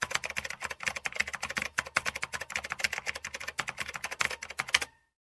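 Keyboard typing sound effect: a fast, unbroken run of key clicks that stops abruptly near the end.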